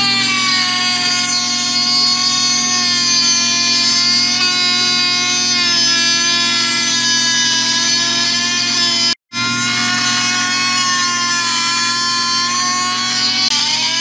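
Cordless Dremel-type rotary tool with an abrasive cutoff wheel, running at high speed while cutting the brass spindle of a safe-lock combination dial to length. It is a steady, loud whine whose pitch sags slightly as the wheel bites, and it drops out for an instant about two-thirds of the way through.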